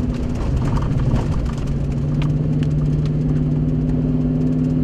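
Car engine running steadily, heard from inside the vehicle. Its note dips and shifts about half a second in, then settles higher and steady by about a second and a half.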